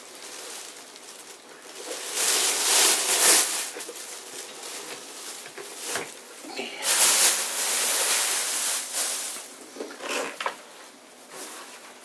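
Packing material rustling loudly in two long stretches while a small guitar combo amp is handled and turned around, with a single knock about six seconds in.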